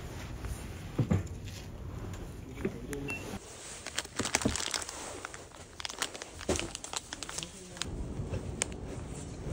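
Crinkling and rustling of packaging handled by hand: plastic bags of nuts, then a newspaper-wrapped parcel. The crinkling comes as many quick crackles, busiest in the middle, with a single thump about a second in.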